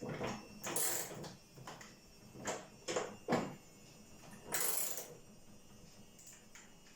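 Intermittent clicks and knocks with two short scraping or rustling bursts, from handling refrigerator parts during hands-on work on the door.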